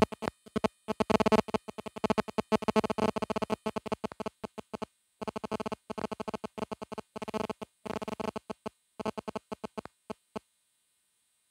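Background music with sustained synthesizer-like tones, broken up again and again by abrupt dropouts into silence; it cuts off about ten seconds in.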